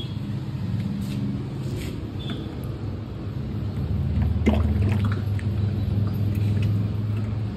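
Engine oil being poured from a red metal measuring jug through a plastic funnel into a can: a faint trickle and a few knocks of the jug, over the steady low hum of a running engine that grows louder about halfway through.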